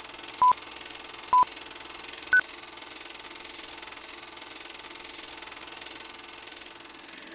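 Film-leader countdown beeps: short tones about once a second, two at one pitch and then a higher final beep about two and a half seconds in, over a steady hiss.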